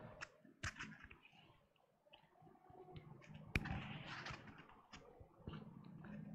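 Microphone handling noise as a gooseneck microphone is handled and adjusted: scattered soft clicks and small knocks, with one sharp click about three and a half seconds in.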